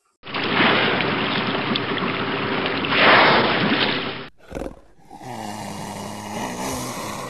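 Loud rushing, splashing seawater where whales surface, cutting off suddenly about four seconds in. After a short break and a brief knock, a quieter steady rumble with a low hum of several tones follows.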